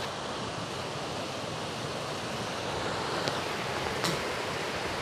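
Floodwater rushing steadily through the breach of a burst earthen dam, a continuous churning of fast, turbulent water.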